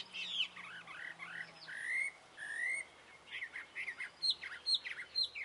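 Small birds chirping and singing: quick runs of high whistled notes, some rising and some falling, with a couple of longer rising whistles about two seconds in.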